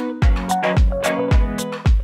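Upbeat background music with a steady kick-drum beat, about two beats a second, under sustained pitched instrument notes.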